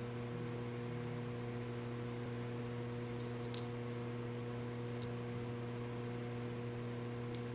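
Steady electrical mains hum on the recording, a low buzz with evenly spaced overtones, with a few faint ticks.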